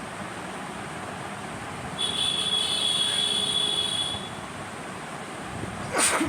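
A woman sneezes once, sharply, near the end, a sneeze set off by tickling the inside of her nose with a rolled paper stick. Before it, a steady high-pitched whistle sounds for about two seconds.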